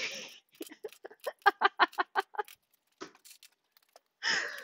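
A person laughing at a joke: a breathy snort, then a run of short, quick 'ha' bursts, about five or six a second, that fade out, and a short breath near the end.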